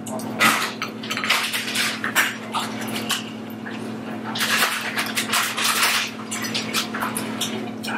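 Clinks, taps and rustles of a meal being handled at a glass table: a metal tumbler being picked up and set down, and food being picked from its paper wrapping, over a steady low hum.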